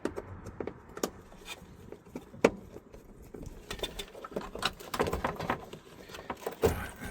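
Irregular small clicks, taps and rattles of hands and a screwdriver working at the old fridge's electrical connections, with a sharper click about two and a half seconds in.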